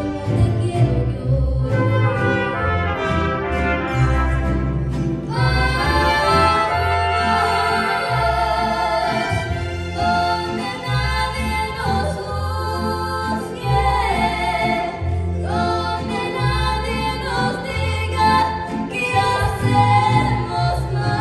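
Mariachi ensemble playing, with brass and singing over a low bass line that steps from note to note about once a second.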